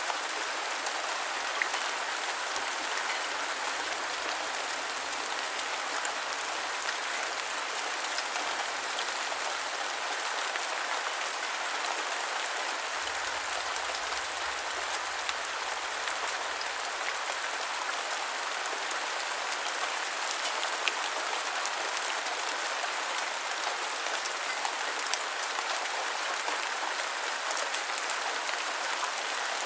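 Steady rain pattering on a surface: an even hiss with scattered sharper drop ticks standing out now and then.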